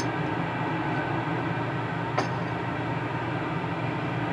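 Cobra 29 CB radio receiving an open channel between transmissions: a steady hiss of static with a low hum under it, and a single click about two seconds in.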